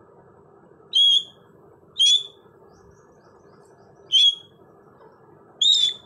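Indian ringneck parakeet giving four short, high-pitched calls, each about a third of a second long, with uneven gaps between them.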